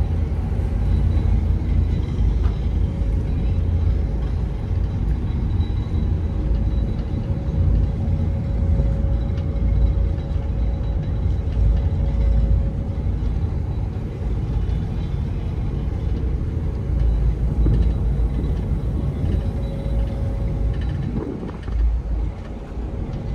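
Steady low rumble of a passenger ferry's engines heard from the open outside deck, with wind gusting on the microphone and a faint steady hum above it.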